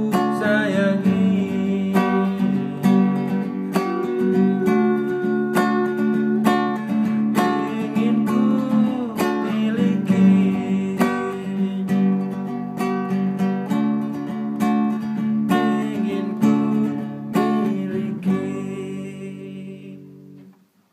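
Classical acoustic guitar strumming chords in a slow ballad, with a man's voice humming along wordlessly in places. A last chord rings out from about two seconds before the end and fades away.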